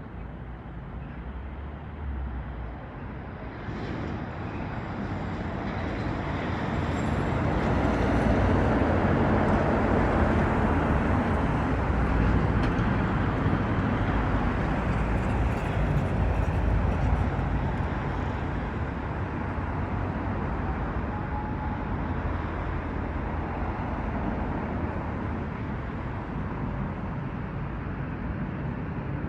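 Vehicle running past, its steady rumble building over several seconds, loudest in the middle, then easing off.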